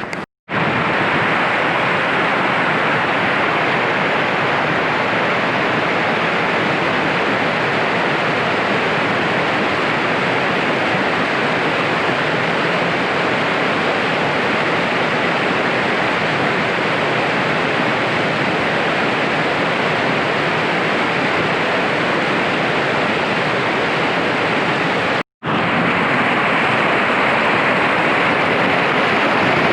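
Steady, even rushing noise with no rhythm or pitch, broken by two abrupt dropouts: one just after the start and one about 25 seconds in.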